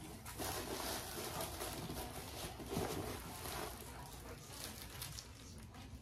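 Faint rustling and light handling noises, with a few small ticks.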